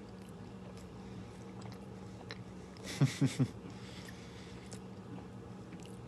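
A person quietly chewing a bite of microwave pepperoni pizza with a soft crust that is not crispy, with a short muffled vocal sound of three quick pulses about three seconds in. A low steady hum runs underneath.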